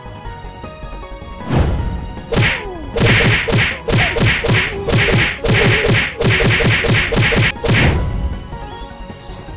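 A rapid flurry of punch and impact sound effects, about four or five hits a second, starting about a second and a half in and stopping near the end, over faint background music.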